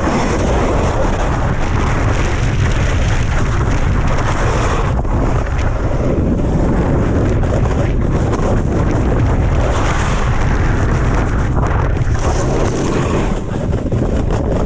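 Wind buffeting a body-worn GoPro's microphone as a snowboard runs fast downhill, mixed with the board's edges scraping over hard snow. A loud, steady, rushing rumble.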